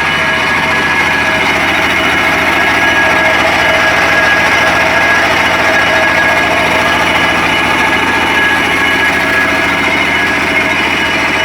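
Brick press machine running steadily: a loud, continuous mechanical rattle with a steady whine in it.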